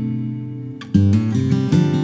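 Background music: an acoustic guitar strumming chords, with a fresh strum about a second in after the previous chord fades.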